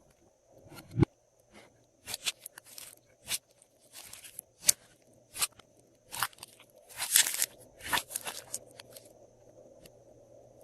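Glossy slime being squished and kneaded by hand, giving a string of irregular sharp pops and crackles, busiest about seven seconds in.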